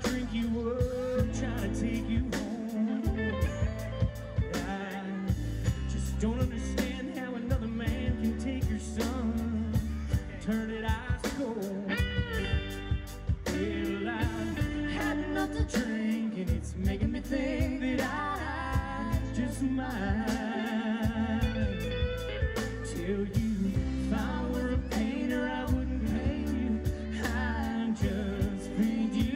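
Live band playing a song: a woman singing lead over guitars and drums with a steady beat.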